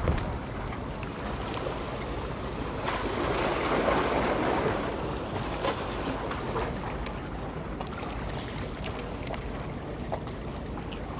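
Sea waves washing against the concrete blocks of a breakwater, with wind on the microphone; a wash of surf swells about three to five seconds in. A few sharp clicks sound here and there.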